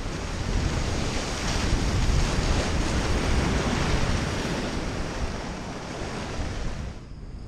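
Sea surf breaking over rocks and foaming around a sea kayak: a steady rushing of whitewater that drops off abruptly near the end.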